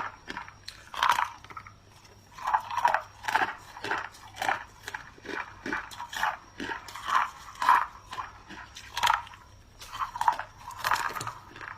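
A person biting into and chewing a chunk of clear ice, with a run of sharp, irregular crunches, often several in quick succession.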